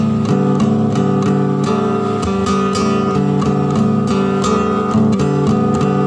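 Background music: an acoustic guitar playing a quick run of plucked and strummed notes at an even, loud level.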